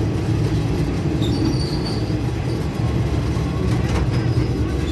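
Passenger train rolling along the track, heard from inside a carriage: a steady low rumble of wheels and car body, with brief high-pitched wheel squeals about a second in and again near the end.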